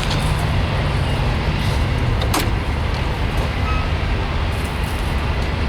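Heavy truck's diesel engine idling steadily, with one sharp click about two and a half seconds in.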